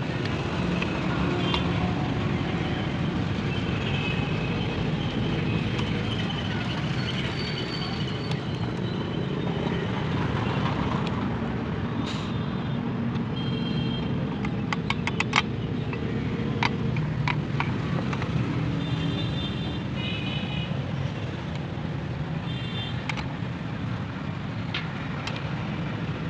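Steady road traffic noise, with a quick run of sharp clicks or taps about halfway through and a few short high ringing tones.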